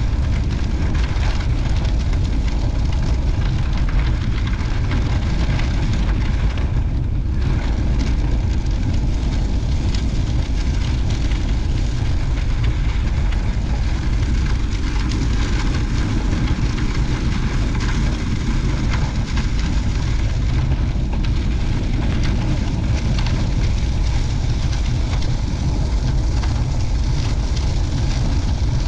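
Wind buffeting the microphone in a steady low rumble, with a constant rushing noise above it, while moving into a headwind.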